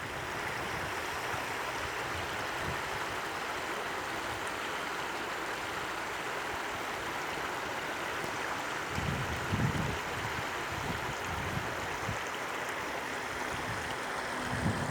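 A small stream babbling steadily over stones. Low rumbling surges come about nine seconds in and again near the end.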